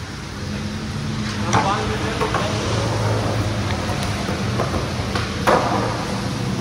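Skateboard wheels rolling over rough concrete, with a steady hiss of rain behind. A small knock about one and a half seconds in and a sharp clack of the board about five and a half seconds in.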